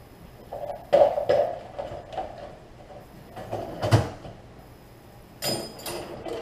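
Scattered knocks and clatter from household activity, with a sharp thump about four seconds in and a brief rattle near the end.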